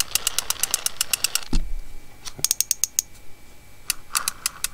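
Shimano TLD 15 lever-drag reel cranked by hand in free spool: a rapid ticking grind of about ten ticks a second. It breaks off with a knock about a second and a half in and starts again near the end. The grinding is the sign of worn-out bearings inside the reel.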